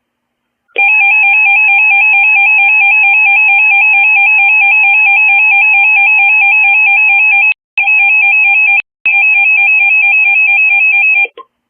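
Emergency Alert System attention signal: a loud, steady electronic alert tone with a fast warble, sounding two pitches at once. It starts about a second in, drops out briefly twice around eight and nine seconds, and cuts off shortly before a new alert is read.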